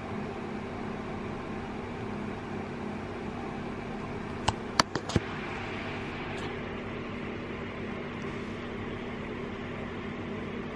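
A window air conditioner runs with a steady hum. About halfway through there is a quick run of four sharp clicks.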